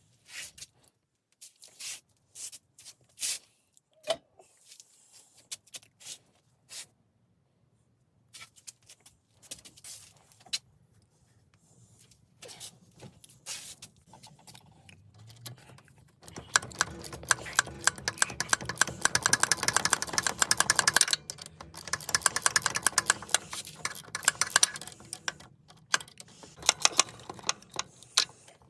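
Hand tools and metal parts clicking and clinking in a repair, then a long run of rapid, continuous clicking that stops briefly partway through.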